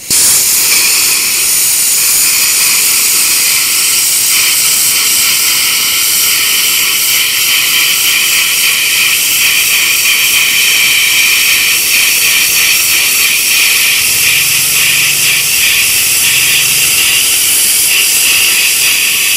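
Plasma cutting torch of an NBC-288 multifunction welder-cutter cutting through sheet steel: a loud, steady high-pitched hiss that cuts in abruptly and holds without a break.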